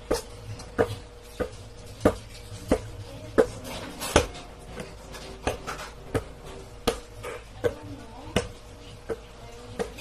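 Basketball dribbled on a hard indoor floor: a steady run of sharp bounces, about one and a half a second.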